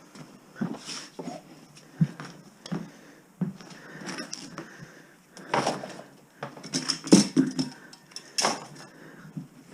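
Irregular knocks, clicks and scrapes from pulling and handling electrical wiring, with louder scraping bursts near the middle and again toward the end.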